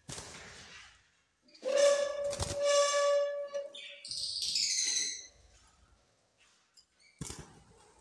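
Pet parrots calling: a long, steady squawk of about two seconds with a knock partway through, then a quick run of higher chirps. A few clicks near the end.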